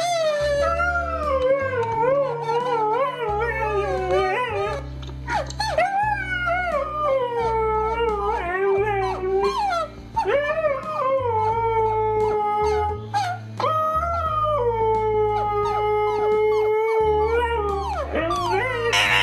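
A dog howling in a series of long, wavering howls that slide down in pitch, over music with a steady bass line.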